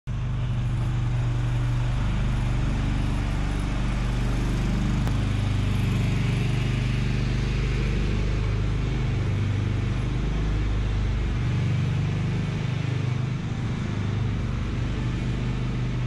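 Riding lawn mower's small engine running steadily under load as it pulls a car along, its pitch wavering a little partway through.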